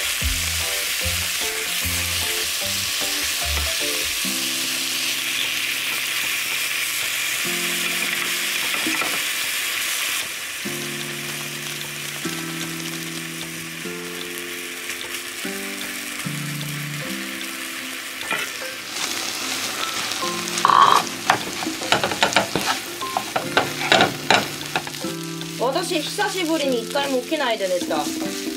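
Food sizzling in a hot frying pan, a steady hiss for the first several seconds, then a wooden spatula scraping and knocking against the pan as fried rice is stirred in the second half. Soft background music with stepped low notes runs underneath.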